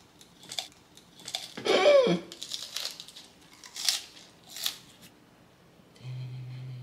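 Crisp crunching as a lettuce wrap (ssam) of pork belly and kimchi is bitten and chewed, in a run of separate crunches over the first five seconds, the loudest about two seconds in with a short falling sound. Near the end a steady low hum starts.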